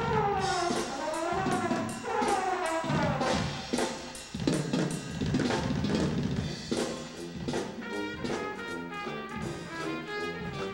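Drum and bugle corps brass and drumline playing: brass lines sweep up and down in pitch for the first few seconds, drums strike hard in the middle, and short repeated brass chords take over near the end.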